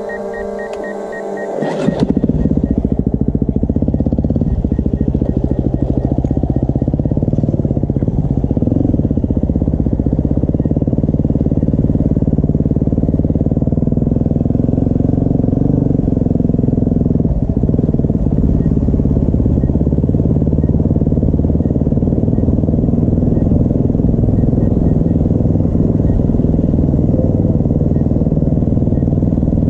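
A brief high whine of several steady tones, then from about two seconds in a motorcycle engine running steadily under way.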